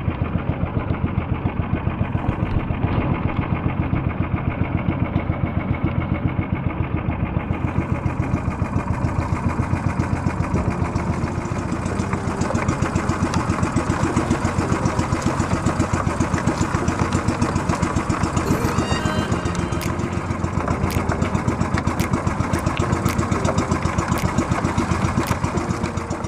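Fishing boat's engine running steadily, with an even, rapid pulsing beat.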